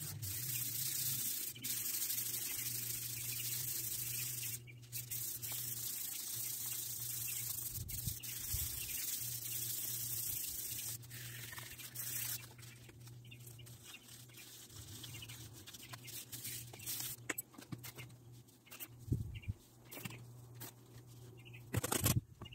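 400-grit sandpaper rubbed by hand along a string trimmer's metal shaft tube: a steady scratchy hiss, then quieter handling with scattered clicks and a few knocks near the end.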